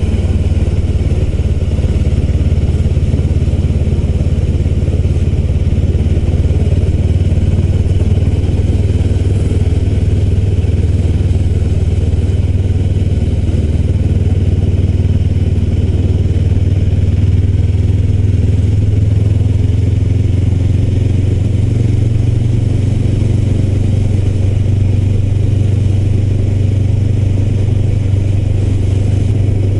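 A Honda CBR400R's parallel-twin engine running steadily under way while the motorcycle cruises, with a low, even drone. Its note rises slightly about two-thirds of the way through.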